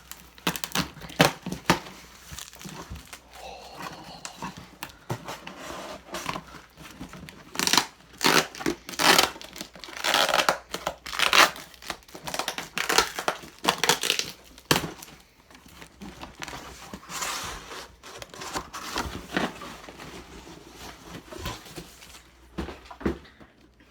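A package being torn open by hand: packing tape ripped and packaging crinkled and crumpled in irregular bursts, busiest through the middle.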